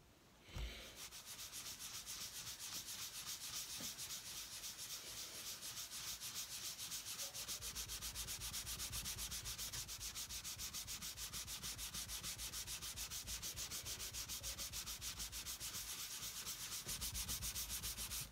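Fluffy applicator pad scrubbed rapidly back and forth over a piece of leather, working conditioner in: a fast, even swishing rub of several strokes a second that starts about half a second in.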